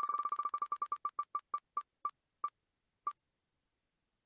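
Wheel of Names spinning-wheel tick sound effect: short electronic beep-ticks, one for each segment passing the pointer, coming fast at first and slowing as the wheel coasts to a stop. The last tick comes about three seconds in.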